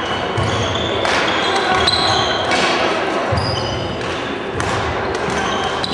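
Badminton hall during play: sharp knocks of rackets striking shuttlecocks, brief high squeaks of sneakers on the wooden court floor, and low thuds of footsteps, over a din of indistinct voices echoing in the big hall.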